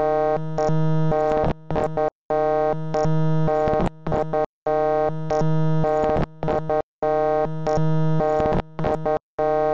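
A loud synthesized electronic tone played as a repeating loop. A held buzzy note breaks into a rapid stutter of short choppy pulses, then cuts out briefly, and the cycle repeats about every two and a third seconds.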